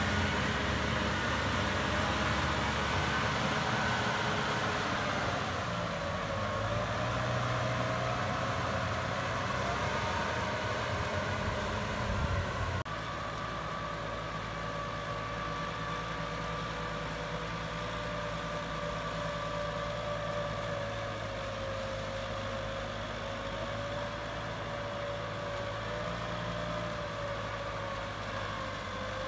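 Kubota M6040SU tractor's diesel engine running steadily under load as it pulls a rotary tiller through flooded paddy mud, with a held whining tone over the engine note. About 13 seconds in, the sound changes abruptly and becomes a little quieter.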